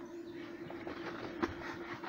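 Sheet-steel equipment cabinet door swung open, with light knocks and one sharp metallic click about one and a half seconds in, over a steady low hum.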